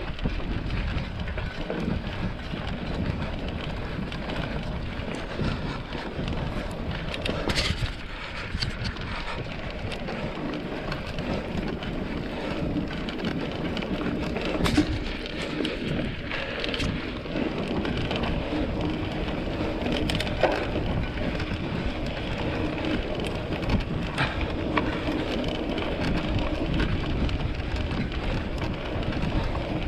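Wind buffeting the microphone over a steady rough rumble and crackle of tyres on a trail, with scattered knocks and rattles, as from a mountain bike being ridden over uneven ground.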